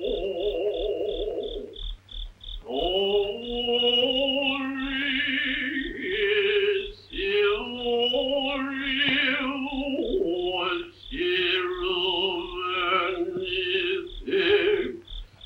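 Film score music from a 1951 soundtrack: a slow melody of long, wavering held notes over a steady ticking pulse of about four beats a second.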